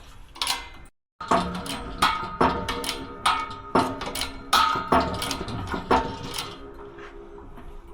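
Background music with a steady drum beat and held chords, starting after a brief cut in the sound.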